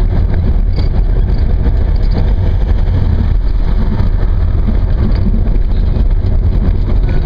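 A moving car's engine and road noise heard from inside the car, a steady low rumble without a break.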